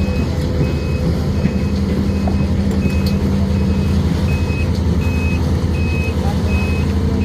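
Excavator's diesel engine running steadily under its travel alarm, a high, even beep repeating about every three quarters of a second as the machine tracks along.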